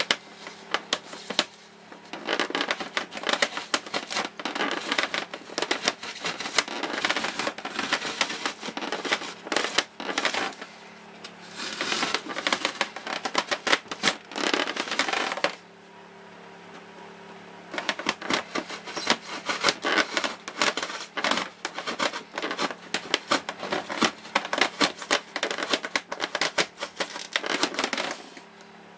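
Serrated knife sawing through the styrofoam lid of a Little Giant incubator: fast scratchy rasping strokes in long runs, breaking off briefly about ten seconds in and for a couple of seconds around the middle, then stopping just before the end. A faint steady hum runs underneath.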